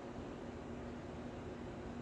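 Steady background hum and hiss of room noise, with a faint low hum tone running through it; no sneeze or breath stands out.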